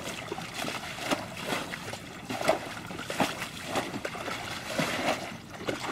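Light, irregular splashing and sloshing of shallow muddy water as hands grope through it, with small scattered splats and crackles.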